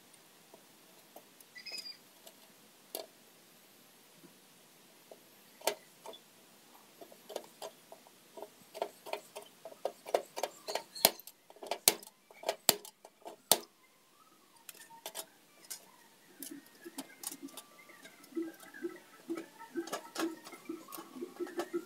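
Blind rivets being handled and set with a hand pop-rivet gun on a sheet-metal panel: small metallic clicks and ticks from the rivets and the tool's jaws, with several sharp snaps about 11 to 14 seconds in as rivet mandrels break off. Quicker clicking follows near the end as the riveter is worked again.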